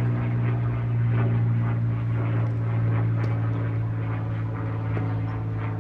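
A steady low mechanical drone with one strong low tone and evenly spaced overtones above it, like an engine or motor running, easing off slightly toward the end.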